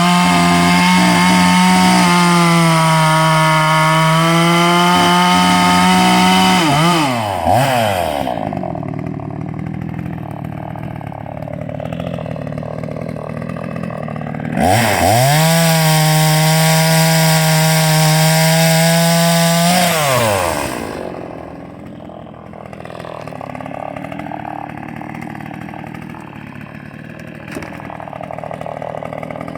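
Vintage Salem Master chainsaw running at full throttle, dropping back to idle about seven seconds in, revving up again for about five seconds, then falling back to idle.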